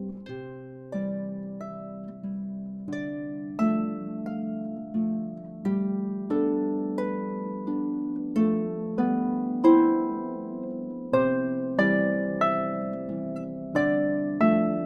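Harp playing a slow tune: plucked notes and chords, each left to ring and fade.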